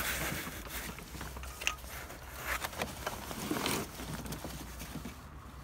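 Hands working in an engine bay around the coolant temperature sensor's hoses and wiring: scattered light clicks and short rustles of plastic and rubber being handled.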